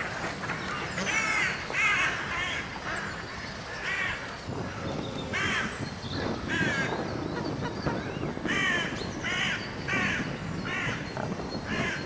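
Harsh cawing calls of a corvid, about a dozen short calls, some single and some in quick runs of two or three.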